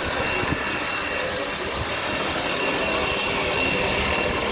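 Historic locomotive giving off a loud, steady hissing rush, with a thin high tone running through it.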